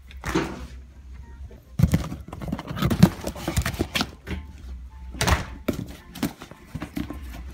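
Irregular knocks, thumps and rustling from a phone being carried and handled, with footsteps, and a couple of longer swishes of something brushing past the microphone.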